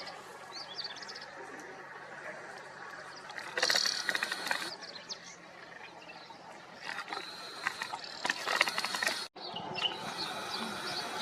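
A few faint high bird chirps, then two bursts of rapid clicking, the first about a second long and the second about two seconds long, over a low outdoor hiss.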